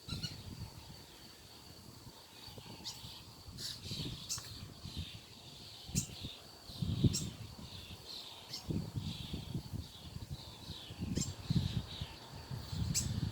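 Birds chirping and calling in short, repeated notes over a steady high hiss, with irregular low rumbles on the microphone.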